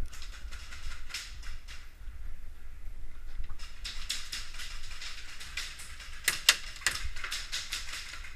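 Airsoft guns firing in rapid strings of sharp clicks and pops, with a few louder, closer shots about six and a half seconds in.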